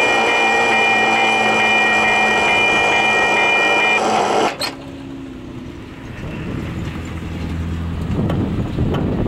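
Freight train rolling away on the rails: a loud, steady rolling noise with high-pitched ringing tones that cuts off suddenly about four and a half seconds in. A quieter low rumble then builds toward the end.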